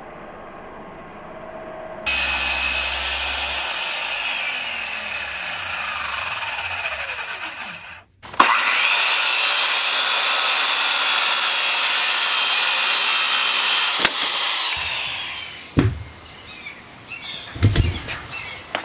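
Skilsaw 13-amp circular saw cutting through thick plywood in two long cuts of about six seconds each. The motor whines under load and winds down after each cut. A few thumps follow near the end.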